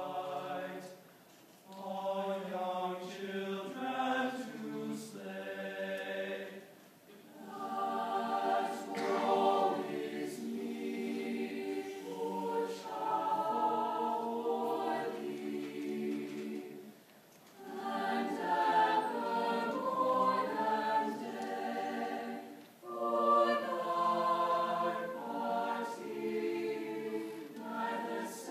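Mixed high school choir singing in sustained chords, phrase by phrase, with short breaths between phrases about a second, seven seconds, seventeen seconds and twenty-three seconds in.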